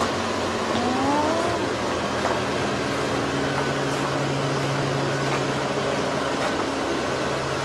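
A steady mechanical hum under an even hiss, with a short rising whine about a second in.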